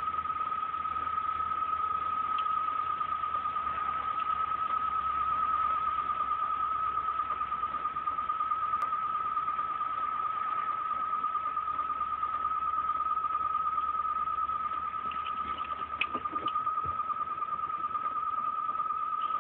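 Unexplained steady high-pitched tone, reported as coming from the sky, holding one pitch with a slight fast waver throughout. A few faint ticks come near the end.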